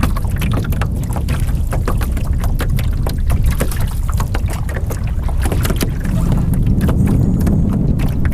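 Canoe on the water, with short splashes and drips around the hull throughout, over a heavy rumble of wind on the microphone.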